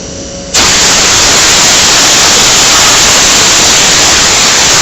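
A loud, steady hiss that starts suddenly about half a second in and fades out at the end.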